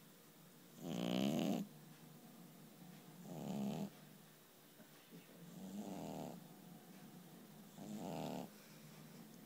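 A sleeping cat snoring: four snores, one about every two to two and a half seconds, the first the loudest.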